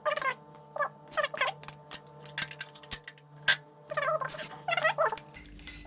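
A cat meowing repeatedly, with a few sharp clinks in the middle, the loudest about three and a half seconds in, over a faint steady hum.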